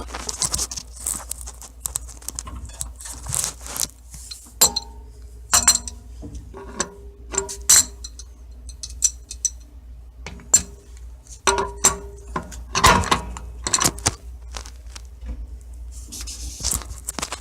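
Metal parts clanking and rattling, some knocks leaving a brief metallic ring, as the top pieces of a water heater are taken off.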